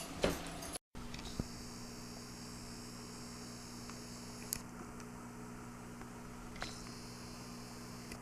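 Steady low electrical hum with a few faint clicks, after a brief cut-out under a second in.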